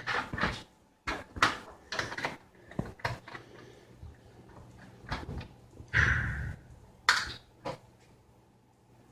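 Scattered small clicks and knocks of a screwdriver and hands working at a laptop's plastic bottom cover while its back screws are being taken out, with a short scrape about six seconds in.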